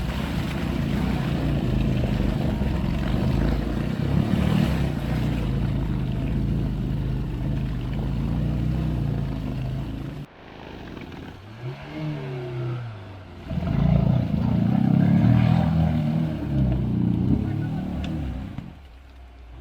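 Off-road vehicle engine revving hard under load, working to get through the stream. It cuts off abruptly about halfway, blips up and down a few times, then runs hard again and drops away near the end.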